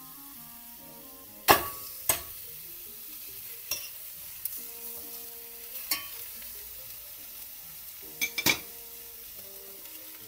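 Veal shanks searing in a hot stainless steel pot with a steady sizzle, the stage where the meat is browned to seal it. Sharp metal clinks sound over it, the loudest about a second and a half in and a quick cluster near the end.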